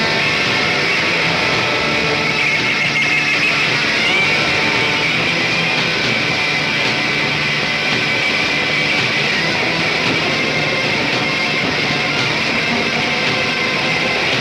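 Rough, noisy rock music with electric guitars playing steadily, heard through a poor-quality FM radio broadcast taped off the air onto cassette.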